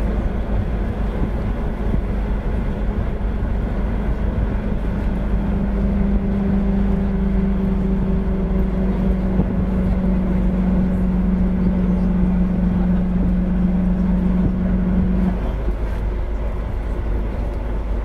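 City bus running, heard from inside the cabin: a steady low rumble throughout. Over it is a steady hum that grows louder about five seconds in and cuts off suddenly about fifteen seconds in.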